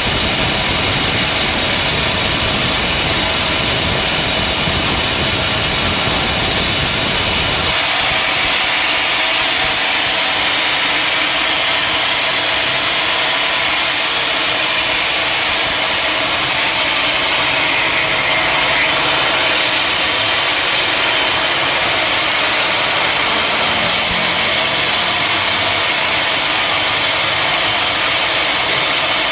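Sawmill machinery running with a loud, steady noise. About eight seconds in, the low rumble drops away and the higher noise carries on.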